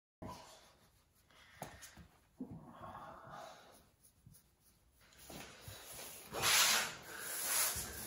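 Hands rubbing and scratching through a dog's fur, an irregular rustling and scraping, loudest about six and a half seconds in.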